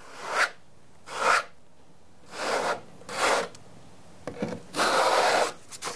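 Steel notched trowel scraping tile mastic across a drywall backsplash, combing ridges into the adhesive: about six short strokes, the last one longer near the end.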